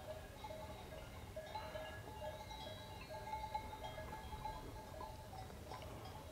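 Faint bells of grazing livestock clanking irregularly, several bells at different pitches ringing on and off, over a low rumble.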